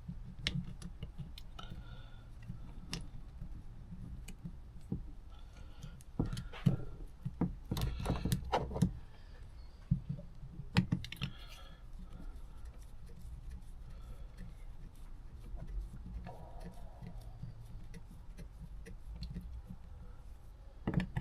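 Small metal parts and hand tools clicking and tapping as a motorcycle carburettor is worked on by hand, in scattered irregular clicks with a busier cluster about six to nine seconds in and another around eleven seconds.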